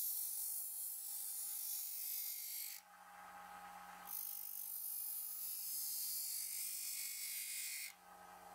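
Steel blade of a gardening tool ground against the abrasive disc of a running bench disc sander: a high hissing grind in two passes, breaking off for about a second near the middle, with the sander motor's steady hum underneath.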